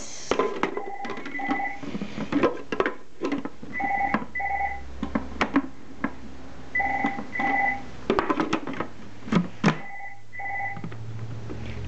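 Telephone ringing: pairs of short two-tone rings repeating about every three seconds, four times, with scattered knocks and clatter in between.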